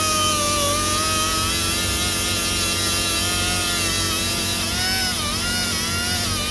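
Electric power tool motor running with a steady whine, its pitch dipping briefly about five seconds in as it is loaded, then recovering.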